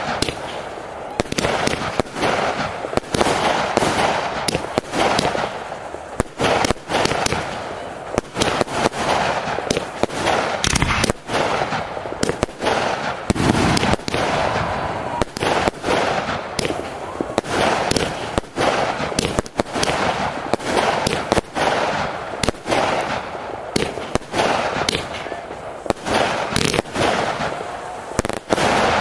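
Aerial fireworks display: shells bursting in rapid succession, many bangs a second without a break, over a constant crackle.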